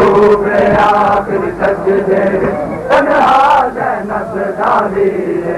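A crowd of men chanting a Muharram lamentation (noha) together, with scattered sharp slaps of hands striking bare chests in matam.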